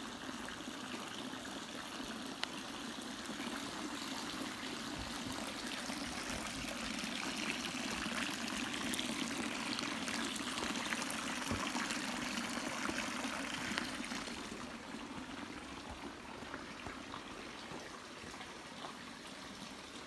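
Running water, a steady rushing and trickling that grows louder toward the middle and eases off over the last third.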